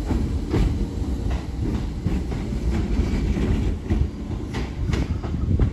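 Class 508 electric multiple unit pulling out of the station, with a steady low rumble and its wheels clicking irregularly over the rail joints.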